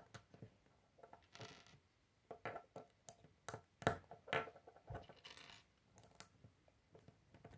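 Small plastic Lego bricks clicking and tapping as they are handled and pressed together by hand: a string of faint, irregular clicks with a few short scraping rustles.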